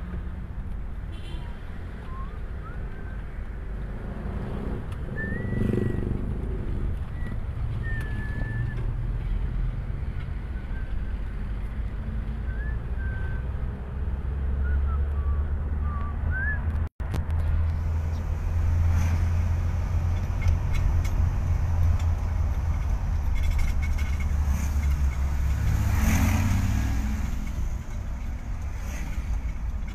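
Car driving, heard from inside the cabin: a steady low engine and road rumble, with a few short high chirps in the first half. The sound cuts out for an instant just past halfway.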